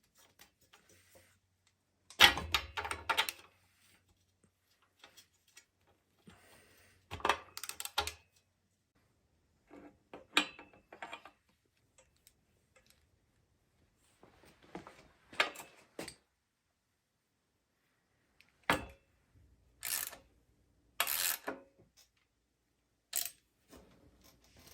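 Tools and metal bike parts clicking and clattering as they are handled, in about eight short bursts with quiet gaps between them.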